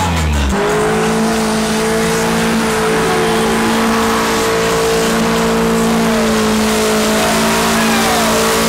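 Car engine held at high, steady revs during a tire-smoking burnout, over the hiss of spinning tires. The engine note settles about half a second in and then holds one steady pitch.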